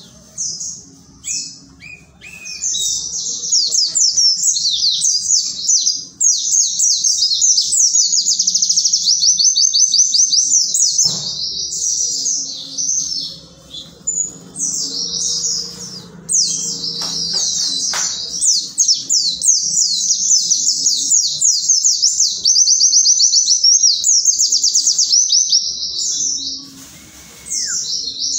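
White-eye (pleci) singing loudly: long runs of rapid, high twittering notes that go on for many seconds, with a few short breaks and a pause of about a second near the end before it starts again.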